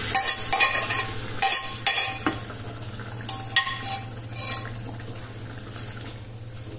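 A spoon stirring boiled whole masoor dal into a pan of frying onion-tomato masala, clinking and scraping against the pan about ten times in the first four seconds. The sizzle of the masala dies down as the dal goes in.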